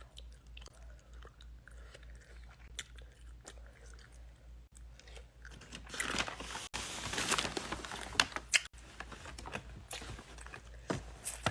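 A person chewing and biting into wax bottle candy close to the microphone, with crunching. Faint mouth clicks at first, the loudest chewing about six to nine seconds in, then a few sharp clicks near the end.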